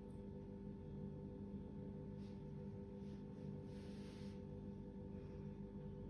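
Faint ambient drone music: several steady held tones in the manner of a singing bowl, unbroken throughout. A short soft hiss comes about two seconds in and again around four seconds in.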